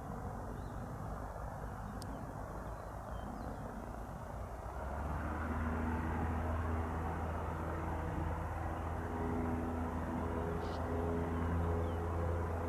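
Cessna 172S's four-cylinder piston engine and propeller at takeoff power, a steady drone that comes in louder about five seconds in, over a background of outdoor ambient noise.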